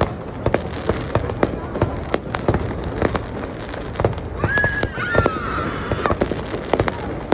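Fireworks display: a rapid irregular run of sharp bangs and pops over a continuous rumble. Midway a high tone with overtones lasts about a second and a half and drifts slightly downward.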